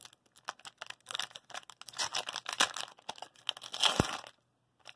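Foil-lined hockey card pack wrapper being torn open and crinkled by hand: irregular crackling and tearing, with one sharp snap about four seconds in followed by a moment of quiet.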